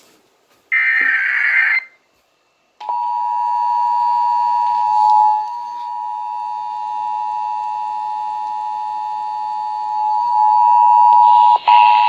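Emergency Alert System test broadcast through an FM radio's speaker. It opens with a short burst of screechy digital header data. After a brief pause comes the steady EAS two-tone attention signal, which holds with only a brief dip near the end.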